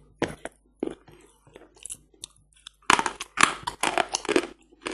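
Hard Barsuk lump chalk being bitten and chewed close to the microphone: scattered single crunches at first, then a dense run of crunching about three seconds in.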